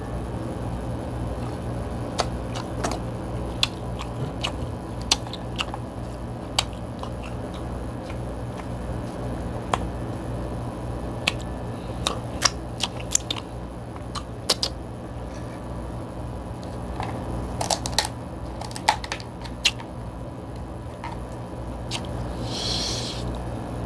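Sharp clicks and cracks of king crab legs being picked apart and eaten, with kitchen scissors cutting through the shell near the end. A steady low hum runs underneath.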